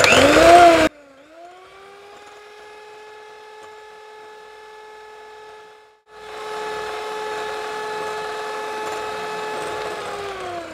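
Electric mixer beating eggs and sugar to a pale foam: the motor spins up to a steady whine, cuts out briefly about six seconds in, starts again, and winds down near the end. A loud noisy burst fills the first second.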